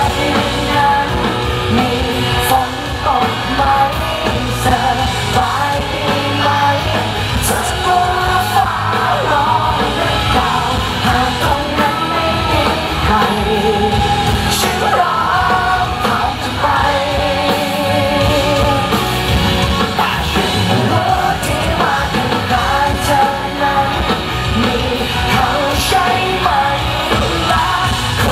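A live band playing a pop-rock song, with a male lead singer singing into a handheld microphone, heard loud through the PA from within the audience.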